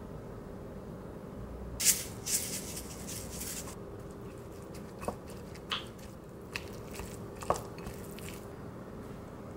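A dry crackling rustle for about two seconds, then a wooden spoon mixing sticky rice in a ceramic bowl: soft squishes and a few light clicks of the spoon against the bowl.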